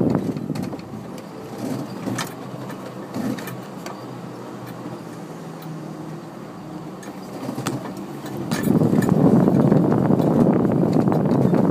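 Jeep CJ-8 Scrambler driving slowly over a rutted dirt trail: the engine runs low and steady, with scattered knocks and rattles from the body. The noise grows louder and rougher about two thirds of the way through.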